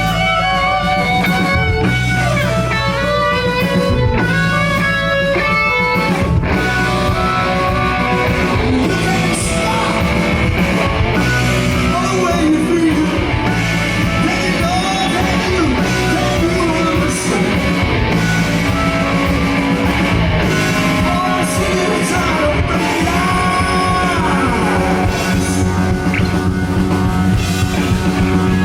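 Rock band playing live with electric guitar, bass and drum kit. A fast run of quick stepped notes opens it, and about six seconds in the full band comes in.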